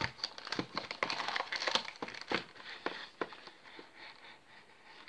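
Printed cardboard puzzle box being handled and opened: a quick run of scrapes, taps and crinkles of the cardboard flap and packaging, fading out after about three seconds.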